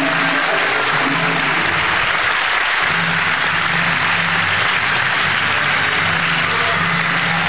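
Audience applauding steadily, with music playing faintly underneath.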